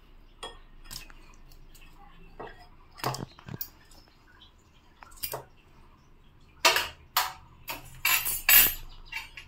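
Scattered clinks and scrapes of a steel fork on a thin steel skewer as charred pointed gourds are pushed off into a bowl of water, with small splashes. A quick run of louder clatters comes near the end.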